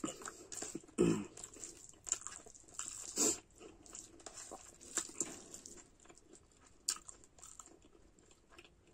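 Close-up chewing and lip-smacking of a person eating soft mashed food by hand, with irregular wet mouth clicks and a couple of louder smacks about one and three seconds in. Fingers also work the food on a steel plate.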